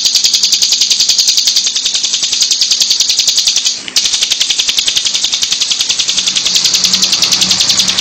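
Bar-winged prinia (ciblek) singing a continuous, high-pitched buzzing trill of about a dozen rapid notes a second, with a brief break about four seconds in.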